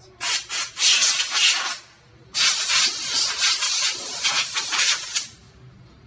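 Compressed-air blow gun blasting air over a bicycle chain and derailleur to blow off freshly sprayed lubricant. It goes in a few short blasts, then after a brief pause one long blast of about three seconds.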